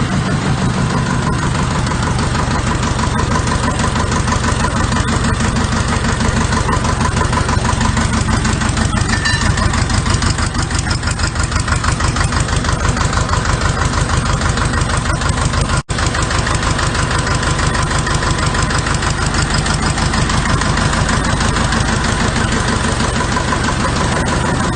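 Diesel engine of a Varisco JD 6-250 motor pump running steadily at constant speed, with an even, fast firing clatter, test-run after the pump's hydraulic end was repaired. The sound breaks off for an instant about two-thirds through.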